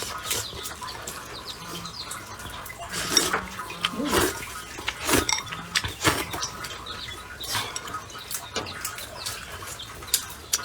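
Close-up eating sounds: slurping and chewing, with chopsticks clicking against a bowl many times at irregular moments.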